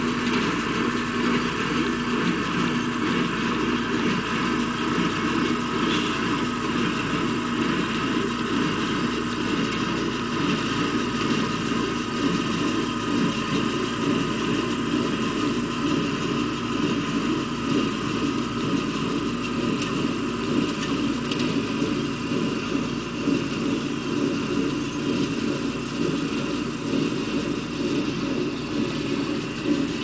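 Farm tractor's engine running steadily under load as it pulls a small square baler through windrowed hay.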